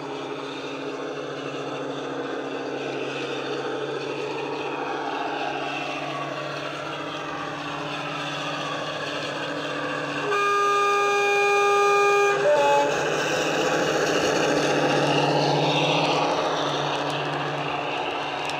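DCC sound decoder in a Dapol Class 52 'Western' model locomotive playing the SWD recorded sound of its twin Maybach diesel engines through an EM1 speaker. The engine runs steadily and grows louder as the locomotive approaches. About ten seconds in, the two-tone horn sounds for about two seconds, ending with a short second note.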